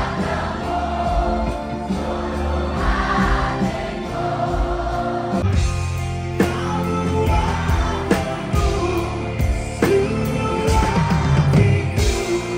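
Live rock band music with sung vocals carried by choir-like massed voices, the band playing sustained chords underneath.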